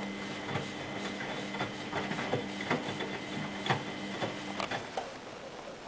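Miele Hydromatic W734 washing machine's drum motor running mid-wash with a steady hum and whine, irregular clicks and knocks over it, then stopping about four and a half seconds in. The motor bearings are a bit loud.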